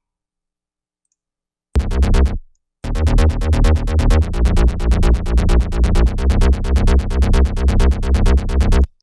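Electronic dance music with a heavy synth bass, played back from FL Studio. After almost two seconds of silence a short bass note sounds, then a fast, evenly pulsing bass pattern runs for about six seconds and stops abruptly near the end.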